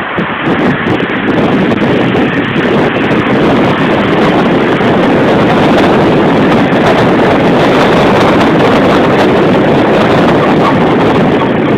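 Wind rushing over the microphone of a phone carried in a moving vehicle, with road noise; a loud, steady rush that doesn't let up.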